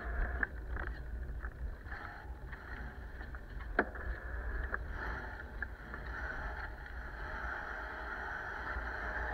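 Wind rushing over the microphone of a camera on a moving bicycle, a steady hiss with a deep rumble. A few sharp clicks and knocks come from the bike rolling over the road, the loudest about four seconds in.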